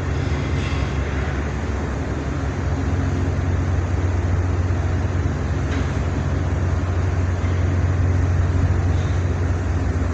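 Steady low drone of a boat's engines running, a constant hum under a wash of noise, swelling slightly a few seconds in.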